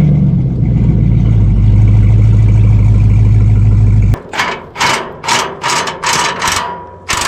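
A vehicle engine running steadily close up, swelling slightly about a second and a half in as it pulls forward. About four seconds in it cuts off abruptly to a different sound: a string of short noisy pulses, about two a second.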